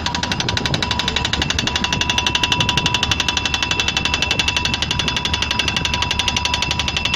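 Pneumatic drilling rig hammering steadily, a rapid even run of blows many times a second, with a steady high whine running alongside.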